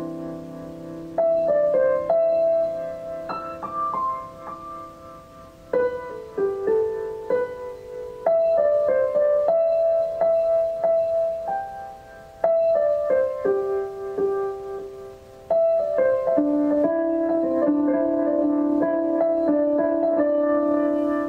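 Slow, gentle keyboard music with piano-like tones: a new phrase of struck notes begins every few seconds, and each note rings on and fades.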